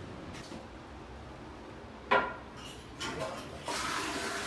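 A sharp metallic clink with a brief ring about two seconds in, a lighter clatter a second later, then a tap is turned on and water starts running steadily near the end.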